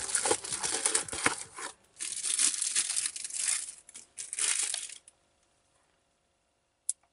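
Thin clear plastic wrapping crinkling and tearing as it is handled and crumpled in the hands, in several bursts with short pauses for about five seconds. It stops, and near the end there is a single short click.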